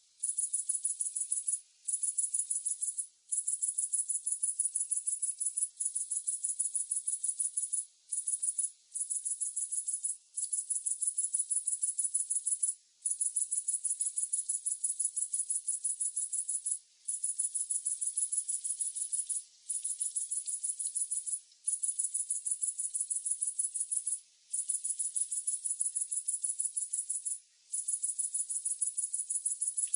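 A single cricket trilling: a high-pitched, rapidly pulsing trill in runs of one to four seconds, broken by brief pauses.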